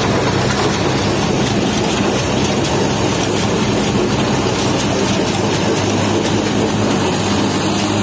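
Sonalika tractor's diesel engine running steadily under load as it tows a truck stuck in mud on a rope.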